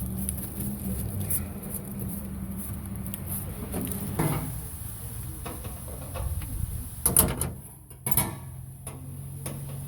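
A few scattered knocks and clatters of parts being handled while a truck is taken apart, the sharpest about seven and eight seconds in, over a steady low hum.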